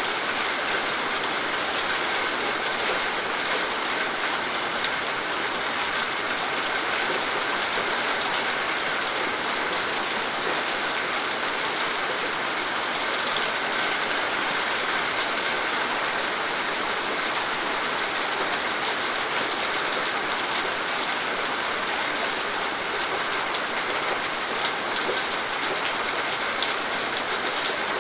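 Steady, heavy rain falling, a dense even hiss of many drops striking a surface, with no pauses.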